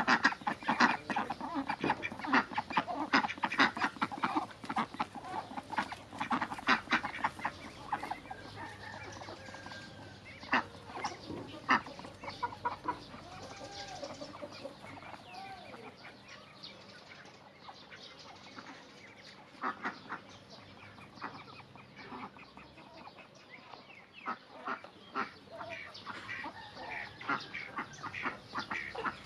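Domestic ducks and chickens calling, quacking and clucking in a dense run of short calls for the first several seconds. The calls thin out in the middle, with a few gliding calls, and pick up again near the end.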